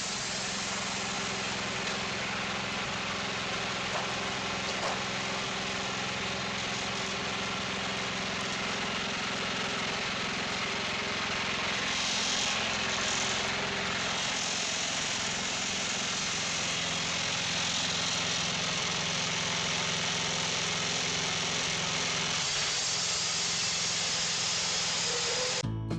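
Engine of a Wood-Mizer portable sawmill running steadily with a constant hum. Guitar music cuts in right at the end.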